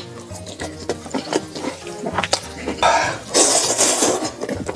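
A person slurping noodles, with one long hissing slurp about three seconds in and chewing clicks around it, over background music.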